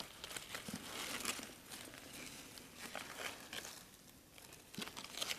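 Faint rustling and crinkling of leaves and dry leaf litter as a gloved hand pushes in among broad green leaves toward a cluster of red berries, with small scattered clicks.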